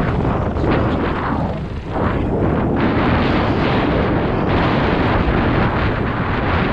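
Wind buffeting the camera microphone during a fast downhill descent, a loud, continuous rough rumble with a few brief dips.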